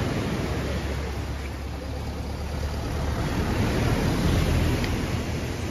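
Strong wind rumbling on the microphone over heavy surf, the noise swelling about three to four seconds in.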